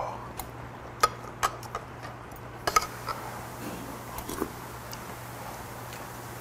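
Metal spoon clinking and tapping against bowls and dishes: a handful of short, sharp clicks, the loudest a quick cluster a little before halfway, over a faint steady low hum.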